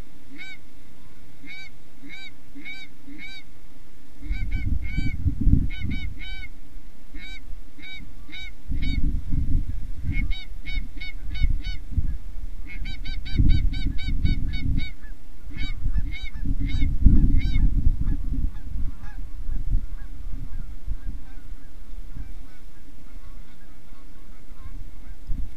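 Canada geese honking in a rapid string of short calls that stops about two-thirds of the way through. Under them, from about four seconds in, an uneven low rumble.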